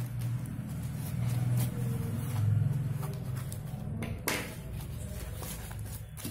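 Dry corn husks rustling and crackling as they are handled and marked with a pencil on a tabletop, with a sharp knock a little after four seconds, over a steady low rumble that swells twice in the first half.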